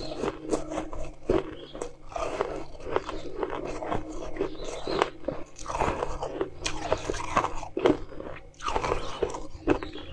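A person biting and chewing mouthfuls of crushed ice, with dense, irregular crunching throughout.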